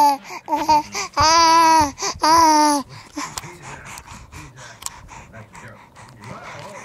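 Baby babbling and squealing in loud, long high-pitched calls for about three seconds, then soft rustling and small knocks of hands and mouth on the camera.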